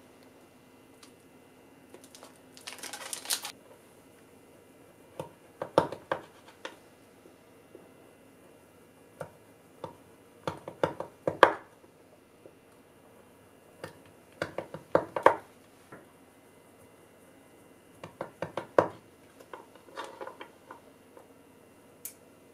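Plastic wrapping of cut rice cakes crinkling briefly as it is opened, then a kitchen knife cutting hard blocks of kirimochi on a bamboo cutting board. The cutting comes as five clusters of sharp knocks, as the blade presses through the mochi and strikes the board.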